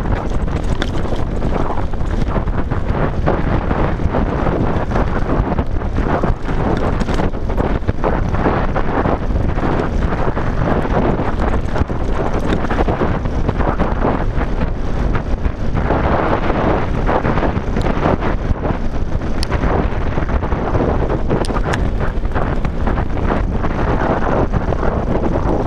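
Wind buffeting the microphone on a fast mountain-bike descent, with mountain-bike tyres crunching over loose gravel and stones and frequent short clicks and knocks as the bike rattles over the rough track.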